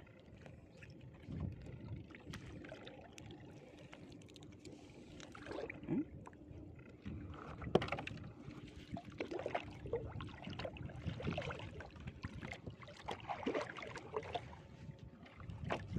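Water splashing and dripping around a small boat as a gill net is hauled in by hand, with irregular knocks and rustles from the net and the hull.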